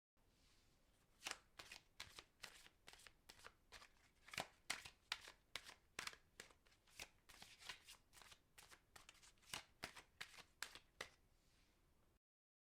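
A deck of playing cards being shuffled: an irregular run of short, crisp card snaps, a few a second, starting about a second in and stopping about a second before the end.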